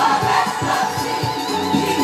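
Gospel music: a choir singing over a band, with a drum kit played along to a steady beat.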